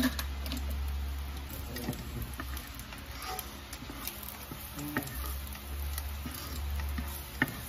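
Chopped garlic sizzling faintly in hot oil in a nonstick pot while a spatula stirs and scrapes it, with scattered light clicks and a sharper tap near the end. A steady low hum runs underneath.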